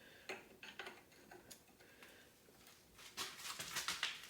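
Wrench ratcheting and clinking against metal brake hardware while the caliper bracket bolts are tightened: a few scattered clicks, then a quick run of sharp metallic clicks and rattles about three seconds in.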